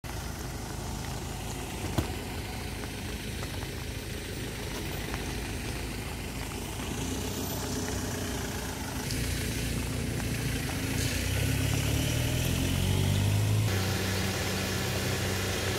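A vehicle engine idling steadily, its hum growing louder from about eleven seconds in, with a single sharp click about two seconds in.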